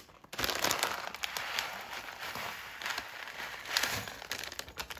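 A clear plastic pouch of crispy scorched rice (nurungji) crinkling as it is handled and poured out, with the dry grains spilling onto a plate. Dense crackling starts about a third of a second in and is loudest near the start and again near the end.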